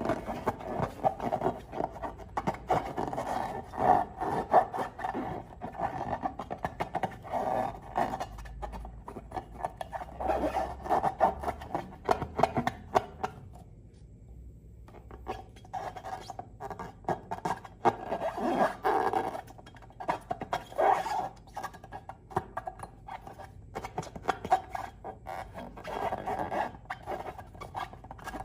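Slime and balloons being squeezed and rubbed by hand, making dense crackling clicks, with a short pause about halfway through.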